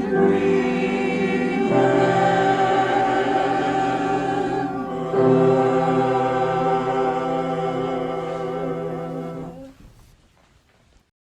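A choir singing long held chords in harmony, moving to a new chord twice, then fading out near the end.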